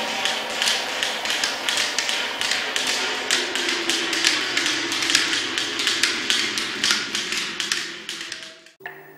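Rapid, irregular clicking taps, several a second, over a sustained droning tone; they fade and stop near the end.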